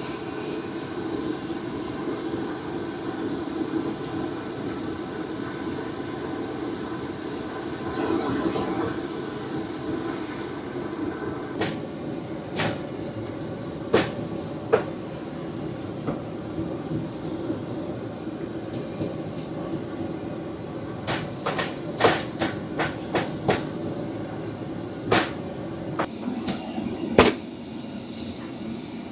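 A steady low rumbling hum. From about halfway through, scattered sharp clicks and knocks join it, coming thick near the end.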